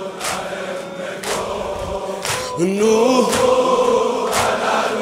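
A large crowd of men chanting a Shia lament (noha) in unison, over rhythmic chest-beating about once a second. A long sung note rises in from about halfway through.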